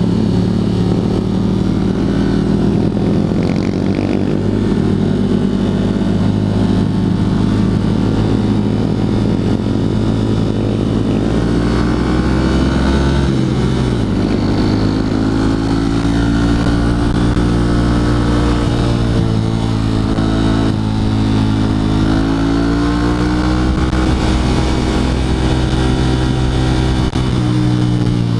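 Honda CRF150L's air-cooled single-cylinder four-stroke engine running under way, its pitch rising and falling with the throttle, with a sudden drop in pitch about halfway through.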